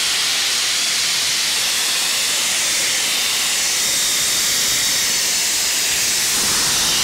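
Compressed air hissing steadily out through a pressurized sandblast pot's open deadman valve and blast line, bleeding off the compressor's pressure.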